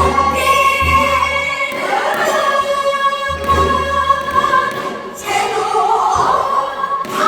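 A woman singing Korean traditional folk song, holding long notes with a wide, wavering vibrato over low instrumental accompaniment.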